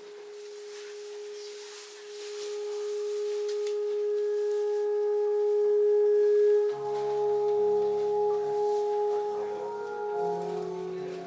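Ambient music of the projection-mapping show: one held tone swells louder over about six and a half seconds, then suddenly gives way to several held tones at different pitches sounding together.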